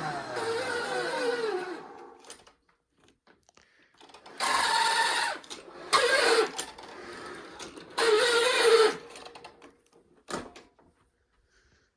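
The motor of a 1990 Hoover Concept One vacuum cleaner winds down with a falling whine. It is then run in three short bursts of about a second each, and each burst cuts off again quickly. A single sharp click comes near the end.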